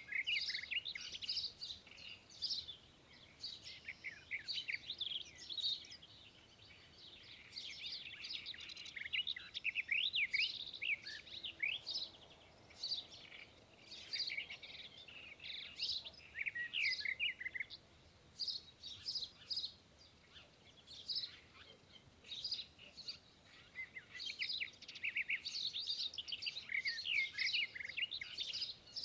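Small songbirds chirping and twittering in quick, overlapping calls, thinning out briefly a few times before picking up again.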